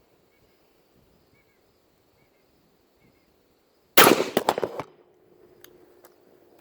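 Ruger AR-556 MPR rifle in 5.56 NATO firing a loud shot about four seconds in, the report and its echoes dying away within a second.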